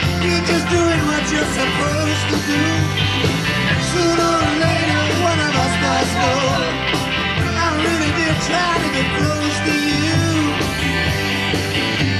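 Live rock band playing, with a wavering lead melody over a steady bass line.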